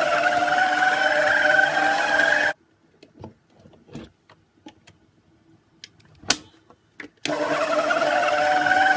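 Electric hand mixer running with a steady motor whine as it beats slime. It stops about two and a half seconds in; a few soft clicks and one sharp click follow in the pause, and the mixer starts up again near the end.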